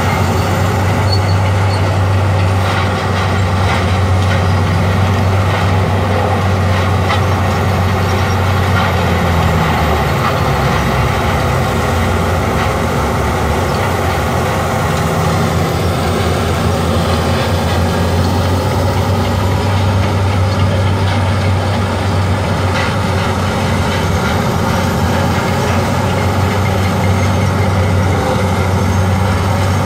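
Heavy diesel land-clearing machinery running steadily: the engines of a tub grinder and the excavator feeding it, heard as one low drone. The deepest part of the drone weakens briefly twice.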